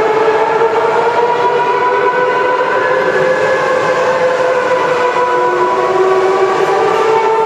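Steady whine of running factory machinery: several sustained tones held together, drifting slowly up and down in pitch.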